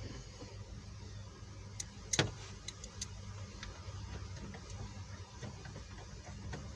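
Small clicks and light scrapes of a screwdriver driving screws into plastic lower dash trim, with one sharper click about two seconds in, over a steady low hum.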